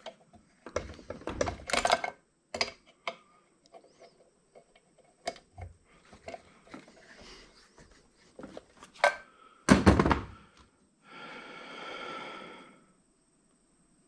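Metal parts of a cast-iron wood planer/jointer clanking and knocking as it is taken apart, with a run of loud knocks about ten seconds in. Near the end comes a steady pitched whirr lasting about two seconds.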